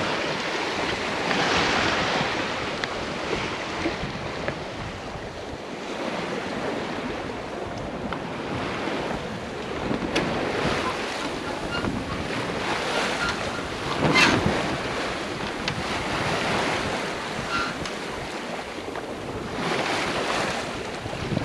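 Water rushing and splashing along a sailboat's hull under way, with wind buffeting the microphone, swelling and easing every few seconds; a louder splash comes about fourteen seconds in.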